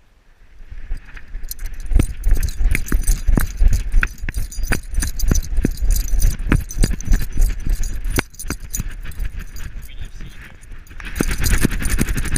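Metal harness rings and tags on a running beagle's collar jangling and clicking with its strides, over a low rumble of the harness-mounted camera being jolted along.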